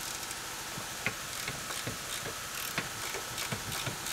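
Ratchet wrench clicking in short, irregular runs of light ticks as it loosens the nuts on top of a pickup's front shock absorber.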